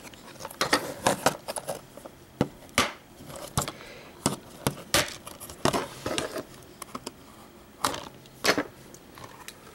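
Knife blade scraping through the seal sticker on a plastic Blu-ray case, and the hard plastic case being handled, with irregular sharp clicks and short scrapes.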